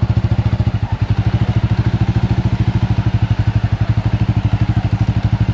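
Motorcycle engine running at a steady idle, an even rapid beat of about a dozen pulses a second.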